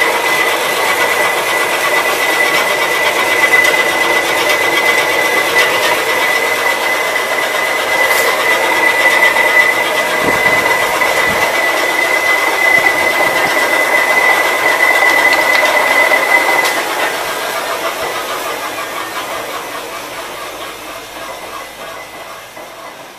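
Laboratory double roller crusher running with a steady mechanical clatter and a high, steady whine. About two-thirds of the way through the whine stops and the machine winds down, fading gradually.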